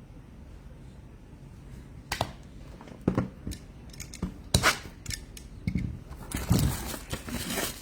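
Trading cards and their plastic packaging being handled: a few sharp clicks and taps from about two seconds in, then a short crinkling rustle near the end.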